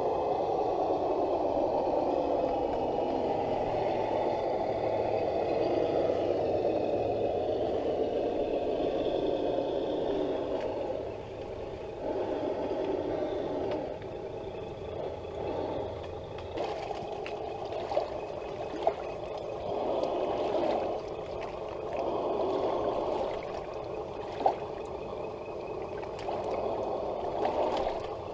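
Electric motors and geared drivetrains of two scale RC Land Rover Defender 110 crawler trucks (Traxxas and RC4WD) running over dirt and rock, steady for the first ten seconds or so, then in short stop-start bursts of throttle with a few sharp clicks.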